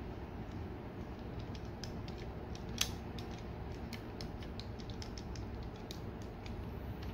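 Plastic parts and ratcheting joints of a transforming robot action figure creaking and clicking as the legs are handled and set into place, with one sharper click about three seconds in, over a steady low background hum.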